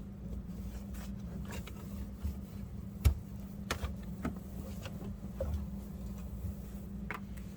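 Scattered light clicks and knocks of things being handled, with one louder knock about three seconds in, over a steady low hum.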